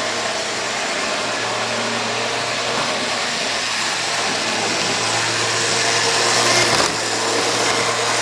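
Tyco Golden Eagle C630 HO model locomotive on a Hobby Town of Boston drive running at full speed: a steady whir of motor, gears and wheels on the rails that grows louder as it approaches and drops suddenly near the end. It runs noisier than other locomotives, which the owner puts down to the Hobby Town of Boston drive and expects to ease slightly as the motor runs in.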